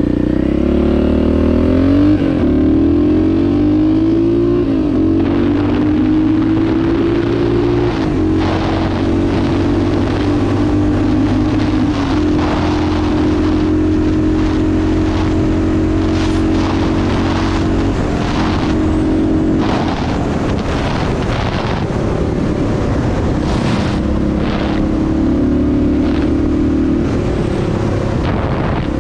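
Yamaha XT500 single-cylinder four-stroke engine under way. It pulls up through the gears in the first five seconds, the pitch climbing and dropping back at each upshift, then runs at a steady cruising speed. Gusts of wind buffet the microphone.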